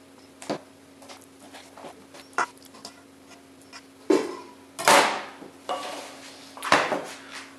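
A few light knocks of a knife on a cutting board, then from about four seconds in a steel pot being picked up and moved over the board with several loud clanks and scrapes. A steady low hum runs underneath.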